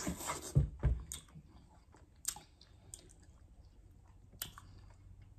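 People biting into and chewing slices of yellow watermelon: a spell of bite and chewing noise in the first second, then quieter chewing with a few sharp mouth clicks.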